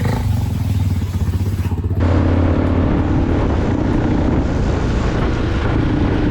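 KTM Duke 390's single-cylinder engine running steadily as the bike is ridden. The sound changes abruptly about two seconds in and becomes louder and fuller.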